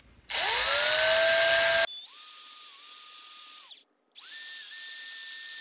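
Cordless drill boring a small pilot hole through a thin wooden part of a model ship. The motor whine rises as it spins up, then holds steady at a higher pitch, stops briefly about four seconds in, and runs again steadily.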